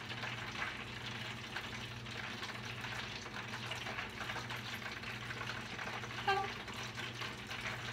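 Food sizzling steadily in hot oil in an electric countertop deep fryer, over a steady low hum.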